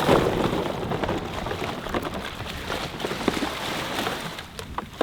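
Strong wind blowing on the microphone, with water splashing and lapping.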